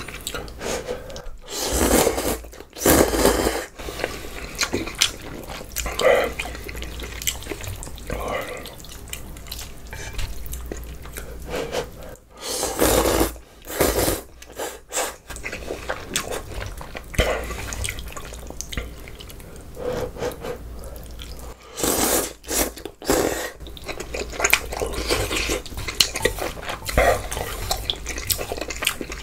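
Close-miked eating of a bulgogi hot pot with glass noodles: wet slurping and chewing, with loud bursts every several seconds among smaller mouth sounds.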